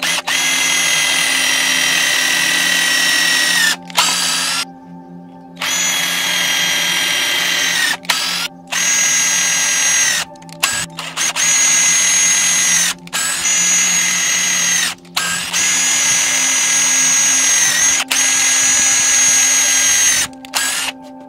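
Power drill spinning a thin twist bit into plywood, boring a row of pilot holes: a high-pitched whine in about eight runs of one to four seconds with short stops between, dropping in pitch as each run ends.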